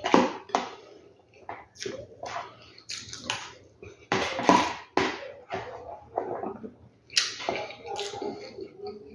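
Close-miked eating: wet chewing and lip-smacking on a mouthful of rice, pasta and boiled egg, coming in irregular spurts several times a second with short pauses, mixed with a spoon scraping against the pot.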